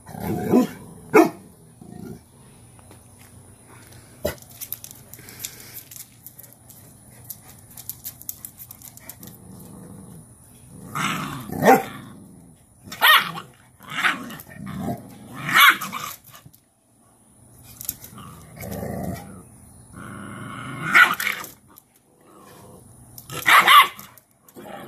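Cane Corso puppies barking and growling at their mother as she corrects them, in short clusters of sharp barks: a pair at the start, then repeated flurries through the second half, with quieter stretches between.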